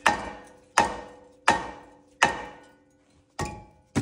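A mallet hammering a rust-seized front brake rotor on its hub to break it loose. There are six hard blows, about one every three-quarters of a second, and each is followed by a brief metallic ring from the rotor.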